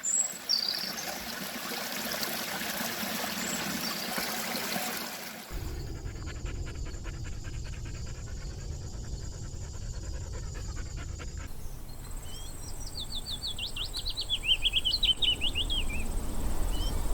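Nature sound effects cut together: birds chirping over a steady rushing hiss, then a fast, even insect-like chirring over a low rumble, then a songbird singing quick trilled phrases.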